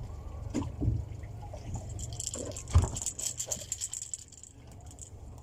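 Water splashing and dripping with scattered knocks and rattles as a hooked fish is hand-hauled on a trolling handline to the boat, one sharp knock about three seconds in and a brief hiss in the middle.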